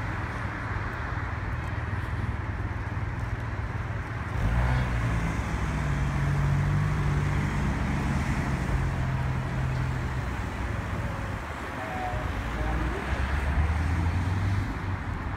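City road traffic on wet streets: a steady hum of cars, with one vehicle's engine passing close, louder from about four seconds in until about ten seconds, and another swelling briefly near the end.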